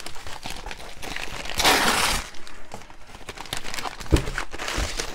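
Paper and cardboard packaging rustling and crinkling as things are pulled out of a box, with a louder burst of crinkling about two seconds in and a couple of dull knocks near the end.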